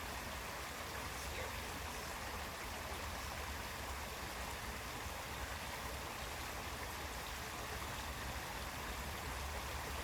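Small creek running steadily: an even, unbroken wash of flowing water.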